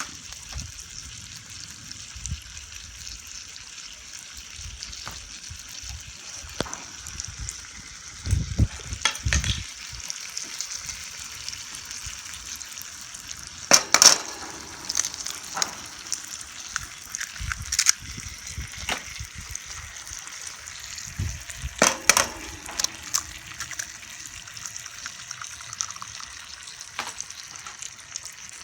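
Bacon and egg frying in a pan over a campfire: a steady sizzle, broken by a few sharp knocks and clinks, the loudest about halfway through and again a little later.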